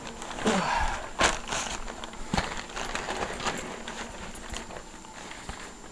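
Irregular knocks, clicks and rustling of someone moving about and handling things in a cramped space, busiest in the first couple of seconds and then quieter.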